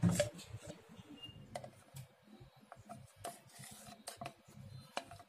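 A spoon scraping thick cream out of a container and dropping it into a steel mixer-grinder jar: soft scrapes with light clicks and taps, the loudest right at the start and another sharp click near the end.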